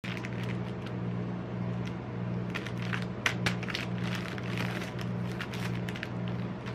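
Plastic snack-bar multipack wrapper crinkling and crackling as it is handled, with two sharper crackles near the middle. A steady low hum runs underneath.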